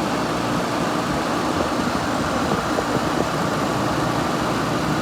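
Vintage 6,000 BTU Gibson Air Sweep room air conditioner running steadily with its compressor and fan on: a low hum under a steady rush of blown air. The fan motor is dry and in need of lubrication.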